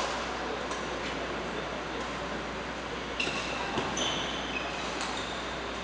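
Badminton doubles rally: a few sharp racket-on-shuttlecock hits spaced irregularly, with short high shoe squeaks on the court floor about three seconds in, over a steady hall echo.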